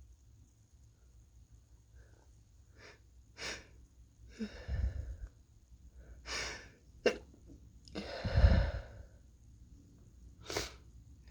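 A person with what may be a cold sneezing several times in quick succession, with sharp breaths between. The sneezes start about three seconds in, and the loudest comes about two-thirds of the way through.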